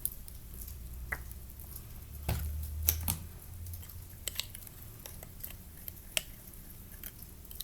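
Light scattered clicks and taps of a dish soap bottle and a small plastic cup being handled while soap is added to a baking soda and water mix, with a low rumble a little over two seconds in.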